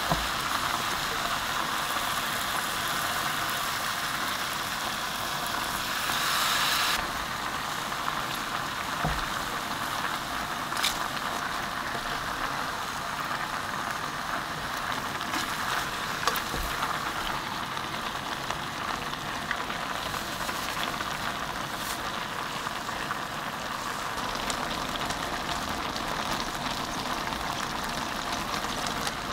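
Dak-galbi, chicken and cabbage in red pepper sauce, sizzling and simmering steadily in a pot, briefly louder about six seconds in, with a few light clicks of chopsticks against the pot.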